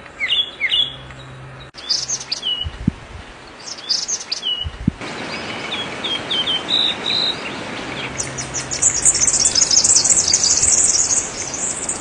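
Small songbirds singing: short chirps and downward-slurred whistled notes, then a fast, high-pitched trilling song from about eight seconds in. The sound changes abruptly a couple of times, as if separate recordings were cut together.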